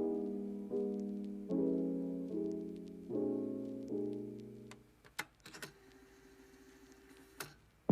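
Soft background piano music, a slow run of chords that each ring and fade. About five seconds in it dies away to a quiet gap broken by a few light clicks.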